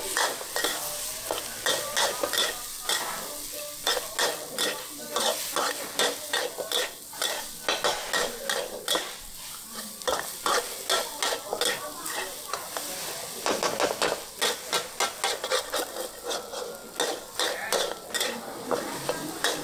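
Metal spatula striking and scraping a wok in many quick, uneven strokes while fried rice sizzles in hot oil.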